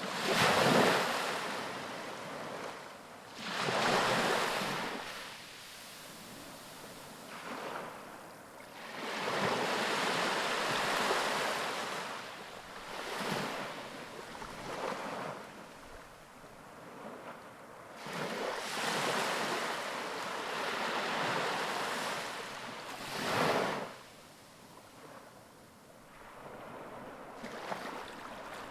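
Ocean surf breaking on a beach: waves wash in and draw back in repeated swells every few seconds, with a sharper break near the start, another at about four seconds and one late on, and quieter lulls between.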